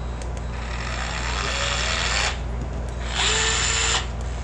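DeWalt DCF682 8V Max gyroscopic cordless screwdriver motor running in two short bursts: a longer whir rising in pitch as it speeds up, then a shorter, louder one about three seconds in. The owner says it has zero power and is not working correctly.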